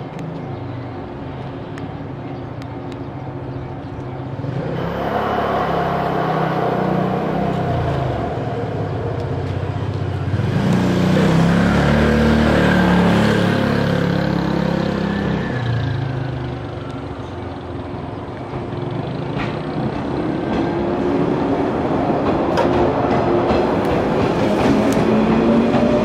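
JR West 103 series electric train standing with a steady hum, then pulling away from about twenty seconds in, its motors' whine rising in pitch as it gathers speed. A louder rumbling rush swells and fades in the middle.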